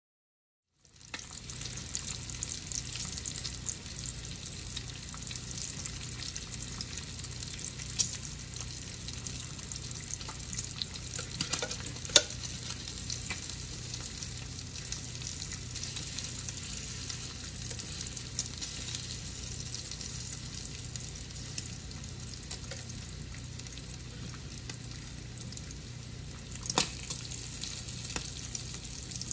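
Bacon strips sizzling and crackling in a Sunbeam electric fry pan, starting about a second in, with a few louder pops and clicks as the strips are turned, the loudest about twelve seconds in.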